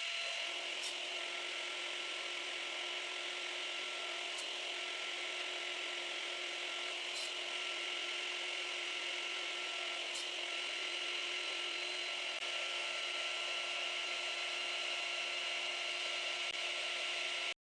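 Table saw running steadily with a constant tone and hiss, and a few faint ticks about three seconds apart; it cuts off abruptly near the end.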